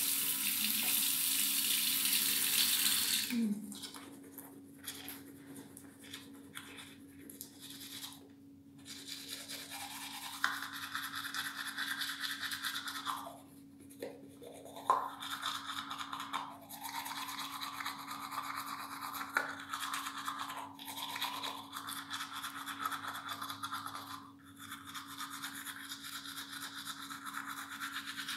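A tap runs for about three seconds, then a manual toothbrush scrubs the teeth with rapid back-and-forth strokes through toothpaste foam, with short pauses between spells of brushing.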